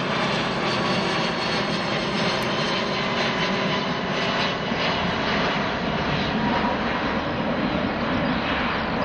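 Boeing 777-200ER's twin Rolls-Royce Trent 892 turbofans at climb thrust just after takeoff: a steady jet engine roar with faint whining tones running through it.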